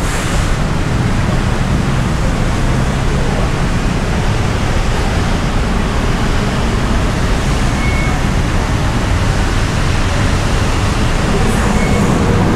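Steady traffic din, an even rushing noise with no distinct events, with two short faint beeps, one about eight seconds in and one near the end.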